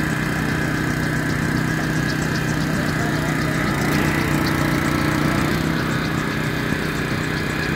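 Small petrol engine of a Lukas hydraulic rescue-tool power unit running steadily, powering the Jaws of Life. Its note gains a slightly higher tone for a second or so about four seconds in.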